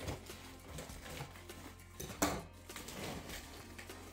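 Cardboard packing box being torn open and handled: scattered rustles and scrapes of the cardboard, with one sharp crack about two seconds in.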